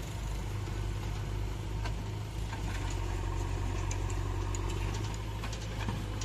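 JCB 3DX backhoe loader's diesel engine running steadily, with a few faint clicks over it.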